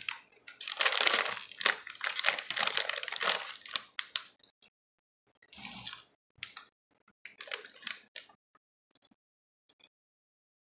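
Doritos Nacho Cheese tortilla chips crunching and a foil chip bag crinkling, loud and dense for the first few seconds. A crunchy bite comes about six seconds in and a shorter burst of chewing about two seconds later.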